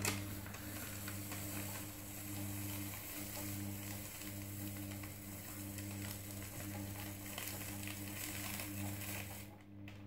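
A steady low electrical hum from an appliance, with light crackling and hiss over it; it starts suddenly and cuts off just before the end.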